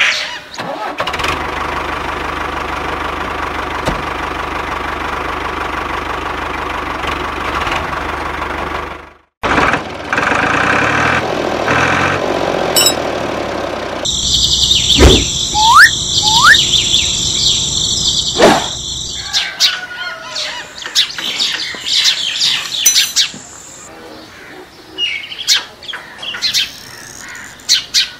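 A small electric motor hums steadily for about eight seconds, then cuts off abruptly. Later a loud, high, steady buzz comes in, followed by birds chirping.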